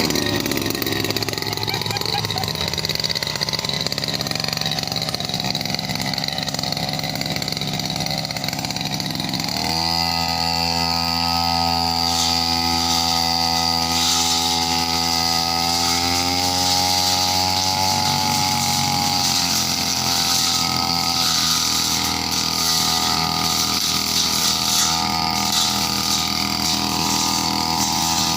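Petrol brush cutter engine running steadily. From about ten seconds in it holds a higher, clearer engine note that rises slightly and then eases off again.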